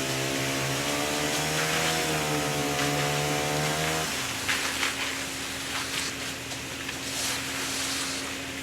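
An engine revs up, holds a steady pitch for about four seconds, then drops away abruptly, over a steady engine hum that runs on underneath.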